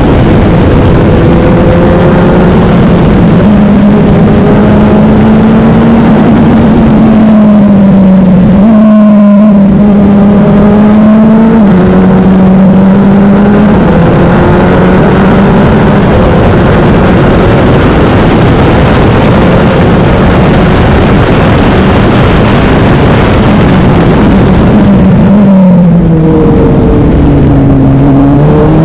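Wolf GB08 sports-prototype race car's engine heard onboard, very loud, running near full throttle with its pitch held high and almost steady, dipping briefly at gear changes. About 25 seconds in the pitch falls in steps as it brakes and downshifts, then climbs again as it accelerates out.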